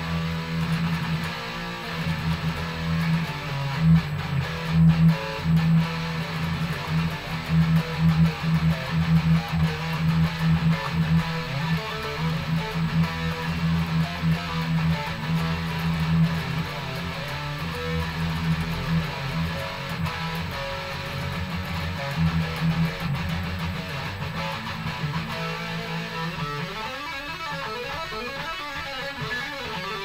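Electric guitar with an EMG 81 active pickup, played through a high-gain metal tone. It plays a riff on the low strings, then shifts near the end to faster single-note runs higher up the neck.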